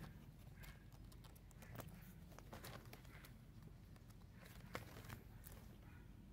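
Faint paper handling: pages of a ring-binder diary being turned and shuffled, with a few light taps and rustles.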